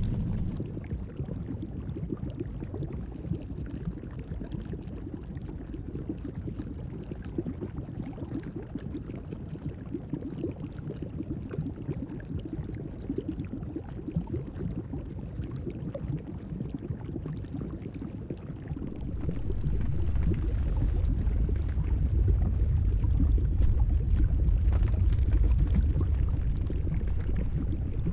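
Bubbling lava sound effect over a low rumble, which swells louder about two-thirds of the way through.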